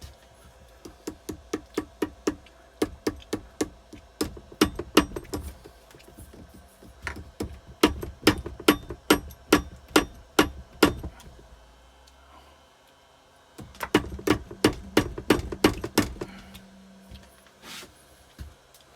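Repeated sharp hammer blows on a motorcycle engine, about two or three a second, in three runs with short pauses between. The blows are an attempt to knock loose a part stuck fast on studs corroded into the aluminium.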